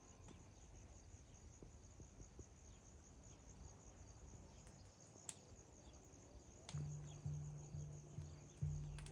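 Faint, steady high-pitched chirping trill of insects. A few soft clicks and low held tones come in near the end.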